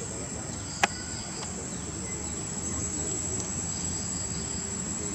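Steady high-pitched insect drone outdoors, with a pulsing chirr that comes and goes, and one sharp click about a second in.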